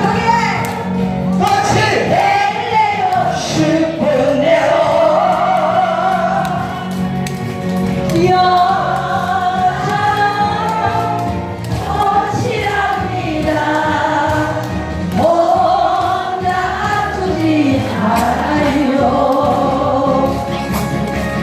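Korean trot song over a backing track, with many voices singing the melody together.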